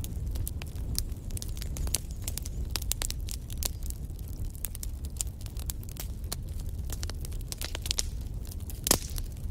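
Wood fire crackling in a fireplace as the logs burn: frequent sharp pops over a low steady rumble of the flames, with one louder pop near the end.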